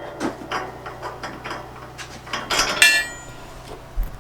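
Steel bolts and small hardware clicking and clinking against the plow's metal mounting bracket as they are fitted by hand, with one sharper ringing clink nearly three seconds in.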